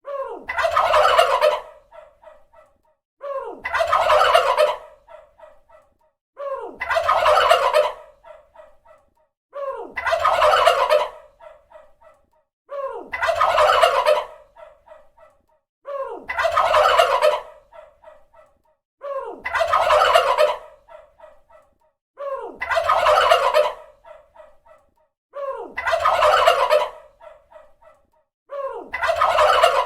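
Turkey gobbling: the same gobble call repeats at even intervals of about three seconds, ten times. Each call opens with a short falling note, runs for about a second and a half, and trails off in a few fainter notes.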